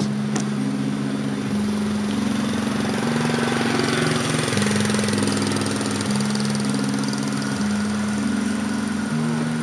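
Background music: low held synth notes that change pitch in steps every second or so, over a steady hiss.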